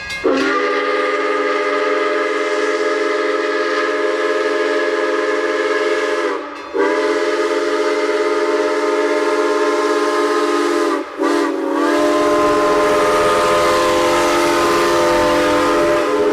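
Steam locomotive chime whistle of Iowa Interstate 6988, a multi-note chord blown in three long, loud blasts. The first lasts about six seconds and the second about four, each followed by a short break, and the third runs on to the end. A low rumble comes in under the last blast.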